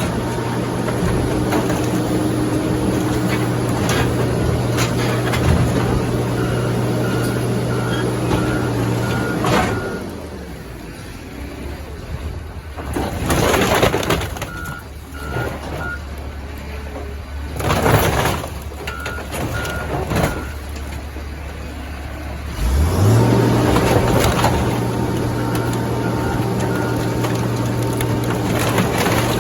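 Heavy diesel machinery running at high speed, dropping to a low idle about ten seconds in and revving back up about 23 seconds in. A backup alarm beeps in short runs, and two loud hissing or crunching bursts come while the engine idles.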